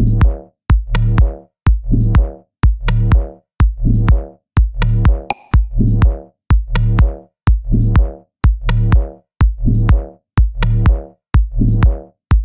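Electronic background music with a steady drum-machine beat, a deep hit about once a second and sharp clicks between.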